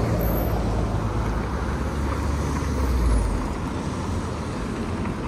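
City street traffic: a passing motor vehicle's low engine rumble builds to its loudest about three seconds in and then fades, over a steady traffic din.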